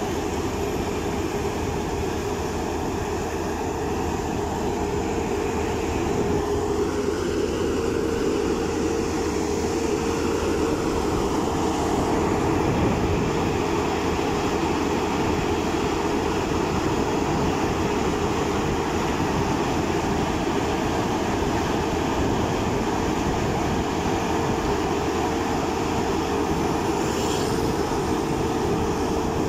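Asphalt paver working as it lays hot mix: the engine and machinery give a steady, even drone with a constant hum.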